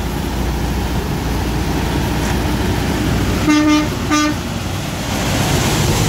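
Semi truck horn giving two short toots on one steady note, over the low running of the truck's diesel engine. Near the end the truck rolls past close by and its engine and tyre noise grows.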